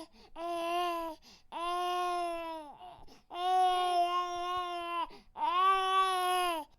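Infant crying in four long wails, each held on a steady high pitch and falling off at the end, with short breaths between them.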